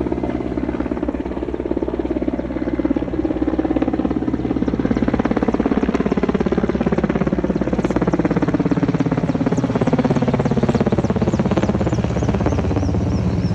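Helicopter flying low overhead: a rapid, even thudding of the rotor blades over a steady engine hum, growing louder as it comes closer.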